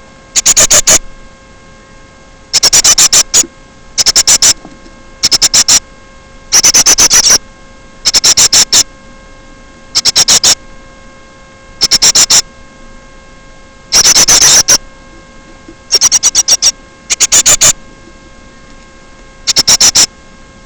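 A bird calling in short bursts of rapid, high-pitched chirps, one burst every one to two seconds, very loud and close to the microphone, over a steady electrical hum.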